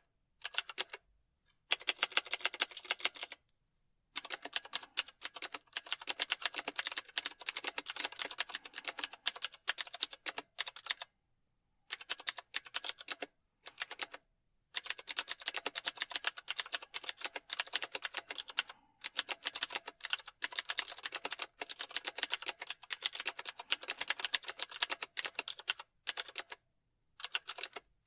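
Computer keyboard typing: rapid runs of key clicks in bursts of several seconds, broken by short pauses of about half a second to a second.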